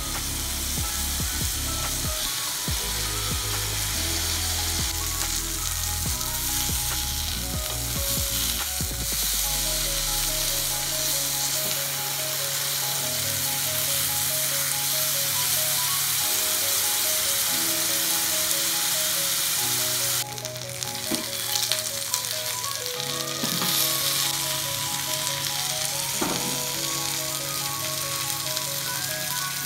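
Marinated chicken pieces sizzling as they fry in hot oil in a nonstick pan, a loud, even hiss. Background music of held notes plays underneath, and the sizzle thins about two-thirds of the way through.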